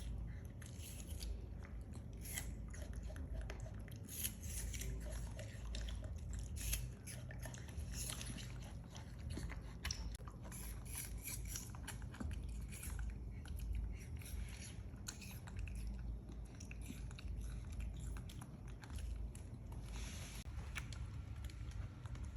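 Chewing and crunching: a steady scatter of crisp little clicks and bites over a low rumble.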